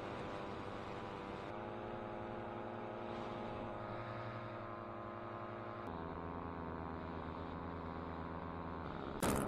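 Tornado 280 paramotor engine running steadily in flight, its note shifting to a new pitch twice as the throttle changes. A sudden loud rush of noise comes near the end.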